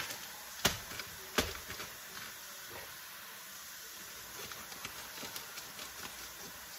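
Riced cauliflower sizzling softly in a pot, with a steady light hiss and scattered faint crackles. Two sharp clicks stand out within the first second and a half.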